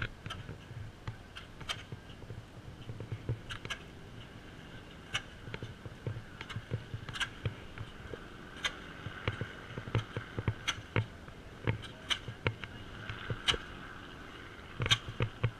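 Handling noise from a handheld camera being carried while walking: irregular sharp clicks and knocks about once or twice a second over a faint low background hum.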